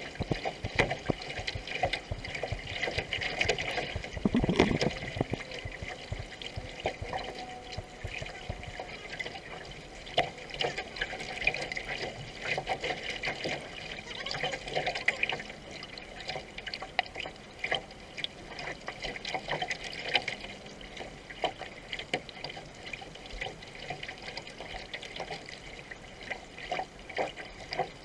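Water splashing and gurgling from canoe paddle strokes and the hull moving through the water, with frequent small knocks and clicks and a louder knock about four and a half seconds in.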